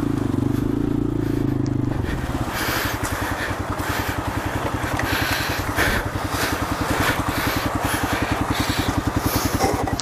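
A 150 cc single-cylinder motorcycle engine running steadily at raised revs, then dropping about two seconds in to low revs with a fast, even putter.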